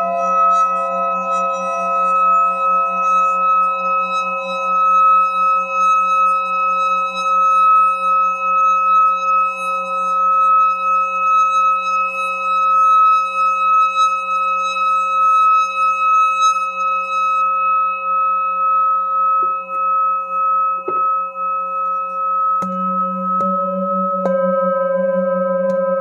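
Metal singing bowl held on the palm, its rim rubbed with a mallet so that it sings a steady ringing hum with a slow wavering pulse. Near the end, three knocks about a second apart each bring in fresh ringing tones.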